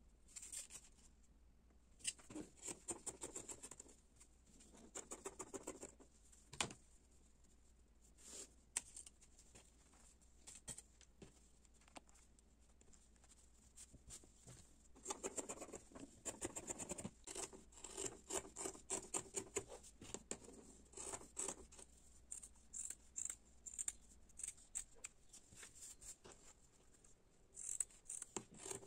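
Faint sound of fabric scissors snipping through pinned layers of cotton fabric, in runs of quick cuts with pauses between.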